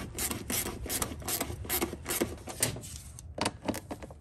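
Short 3/8-inch hand ratchet with a 10 mm socket worked in quick back-and-forth strokes, its pawl clicking, giving the intake air tube's hose clamp its final tightening. The strokes come about three a second and thin out near the end.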